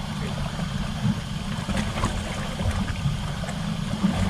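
Small boat under way: its motor running with a steady low rumble while water rushes and splashes along the hull.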